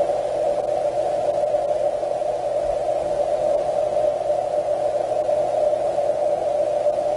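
Amplified output of an Aqua-Scope water leak detector's ground microphone set on a concrete floor: a steady, even hiss of water flow in the pipe beneath, centred on one narrow band of pitch.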